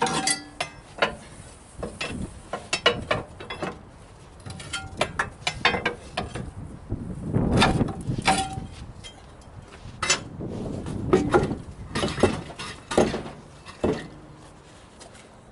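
Tire tool clanking and scraping against a truck wheel's rim as a stuck tire is pried loose: irregular sharp metal clanks, some ringing briefly, with rougher scraping stretches in between.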